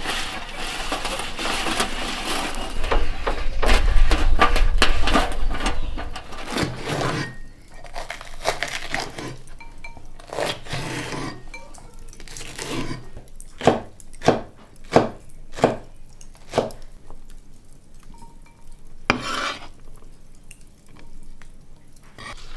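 Pots, dishes and metal cutlery clattering and scraping, dense for the first several seconds, then thinning to separate knocks and clinks, with a quick run of about five about two-thirds of the way through.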